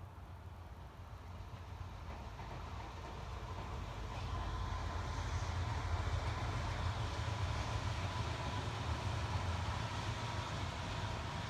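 A vehicle's low rumble with road or track noise, growing louder over the first few seconds and then holding steady, with a faint steady whine above it.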